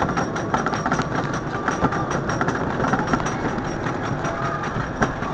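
Wooden roller coaster train climbing the chain lift hill: the lift machinery rumbles steadily under a run of irregular clicks and clacks from the chain and track.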